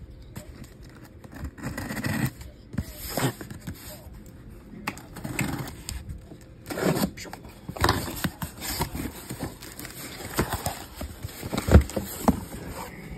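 Corrugated cardboard shipping case being opened by hand: irregular scraping, rustling and tearing of the cardboard, with handling knocks and one sharp knock near the end.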